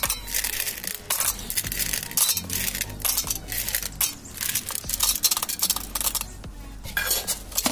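Hard Pulse candies clattering and clinking as they are dropped by the handful into a stainless steel mixer grinder jar. Near the end the last of them are tipped in straight off a steel plate.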